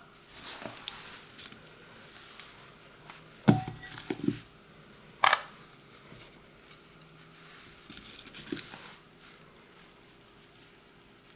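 Soft, scattered handling sounds of sliced apples being picked up and laid on cake batter in a springform pan: a few light clicks and knocks, loudest a low thump about three and a half seconds in and a sharp click about two seconds later.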